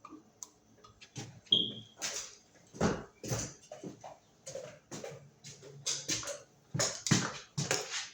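Irregular handling noise: a string of knocks, scrapes and rustles, with a short squeak about one and a half seconds in.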